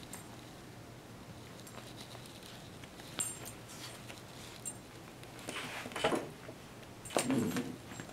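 Puppy playing with plush toys on carpet: paws scuffling, the toy being shaken about, and a few light metallic clinks from its collar tag. Two louder bursts of the play come near the end.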